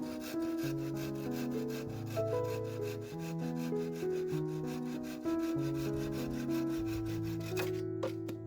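A hand saw cutting wood in quick, even rasping strokes over soft background piano-like music. The sawing stops near the end, leaving only the music.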